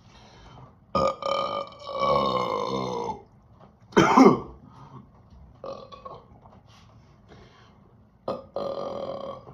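A person burping repeatedly from carbonated soda gas after chugging Mountain Dew. A long, drawn-out burp of about two seconds comes first, then a short sharp one, a fainter one, and another long burp near the end.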